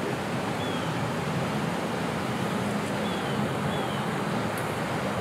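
Steady outdoor background noise, a rushing hiss over a low rumble, with a few faint, short, high chirps.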